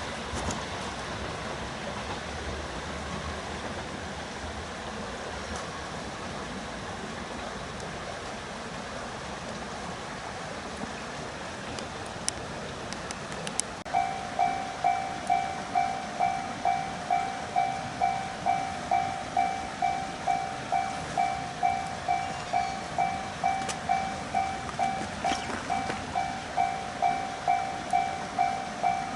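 Japanese railway level-crossing alarm starting about halfway through, ringing its electronic 'kan-kan' bell at about two strikes a second to warn of an approaching train. Before it, a steady rushing noise from the line.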